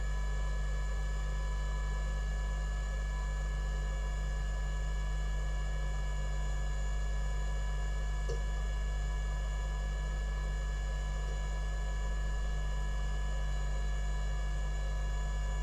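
Steady electrical mains hum with a buzzy row of evenly spaced overtones, unchanging throughout, with one faint click about eight seconds in.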